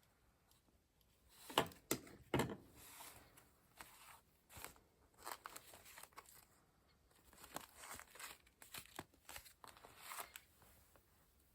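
Paper being handled for a junk journal: rustling and crinkling, with a couple of sharp taps about two seconds in, the loudest moment.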